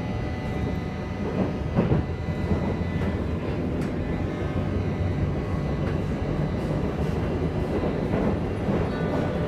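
Berlin U-Bahn car running on the rails, heard from inside the carriage: a steady rumble of wheels and running gear with a few knocks from the track, the clearest about two seconds in.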